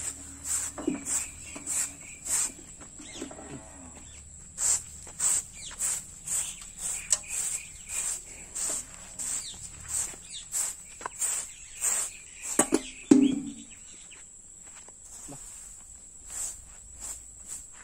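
Broom sweeping a dry dirt floor: short scratchy strokes, about two a second, with brief pauses. A single louder knock comes about thirteen seconds in.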